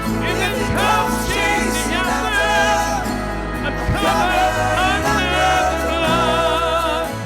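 Contemporary worship song played by a band, with a steady bass under sustained chords and a melody line held with vibrato, between sung lines.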